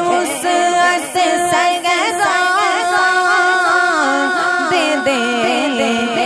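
An Urdu naat being sung: a voice holds long, ornamented notes that waver and slide in pitch, with no clear beat.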